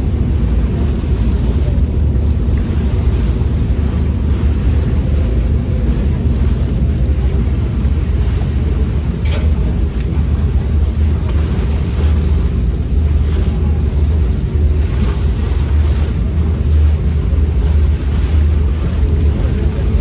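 Steady low rumble of a passenger ferry under way, with wind buffeting the microphone.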